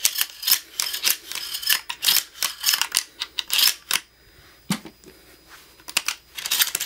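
Quick metallic clicking and clacking from a Mossberg 590 Shockwave 12-gauge pump shotgun's loading port as fingers work the parts inside and press 12-gauge shells into the magazine tube. The clicks come thick for the first few seconds, then ease off, with a dull knock just before the five-second mark, and return as a shell is pushed in near the end.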